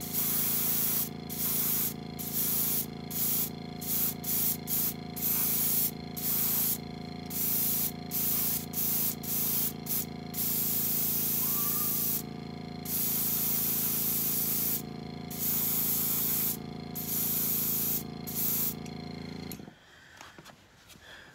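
Airbrush spraying paint onto a small die-cast car body, the hiss turning on and off in many short bursts with a few longer passes. Underneath, the air compressor runs with a steady hum. Both stop near the end.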